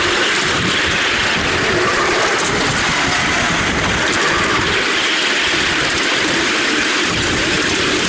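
Ride-on miniature railway train hauled by a miniature BR class 37 locomotive, heard from aboard: a steady running drone at an even level.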